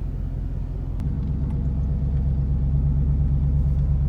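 Ford 460 big-block V8 truck engine running while driving, a steady low engine note that gets louder about a second in.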